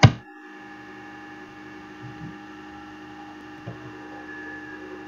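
A steady electrical hum made of several fixed tones, with a short sharp sound right at the start and a few faint soft knocks further in.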